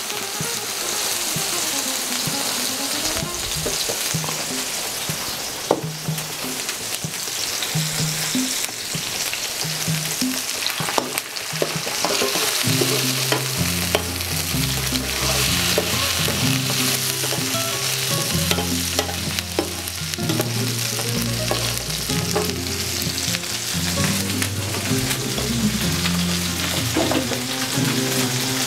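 Tomato sauce sizzling in hot oil with chopped onion and garlic in a steel paella pan, stirred with a metal spoon that clicks now and then against the pan. A low stepped bass line joins underneath about halfway through.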